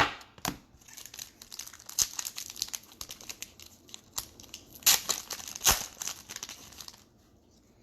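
A trading card pack's wrapper crinkling and tearing as it is opened by hand: a run of crackles with a few sharper snaps that stops about a second before the end.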